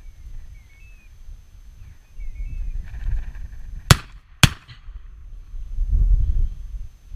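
Two shots from a .410-bore (36-gauge) shotgun, about half a second apart, a little past the middle.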